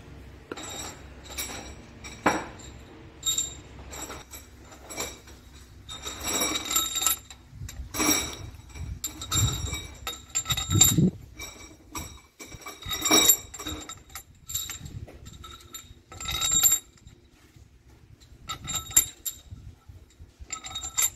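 Steel cylinder-head bolts clinking against each other and against the cylinder heads of a WD615 truck diesel as they are set into their bolt holes. It is a string of irregular metallic clinks, each with a short ring.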